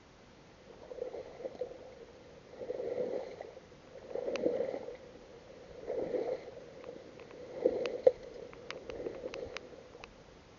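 Water sloshing in regular strokes, about one every one and a half seconds, with a few sharp clicks among the later strokes.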